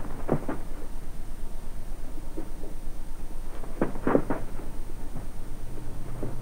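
A few short, soft thumps in two small groups: two near the start and three close together about four seconds in, over a faint steady low hum.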